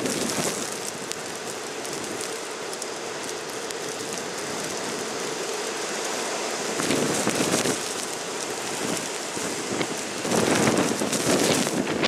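Blizzard wind driving snow past in a steady hiss, with stronger gusts about seven seconds in and again near the end.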